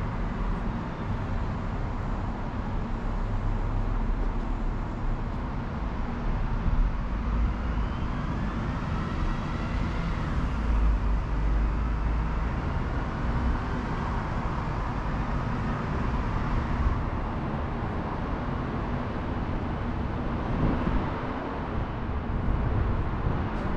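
Road traffic going by, a steady rumble and hiss of vehicles. Around the middle, one passing vehicle adds a whine that rises and then falls.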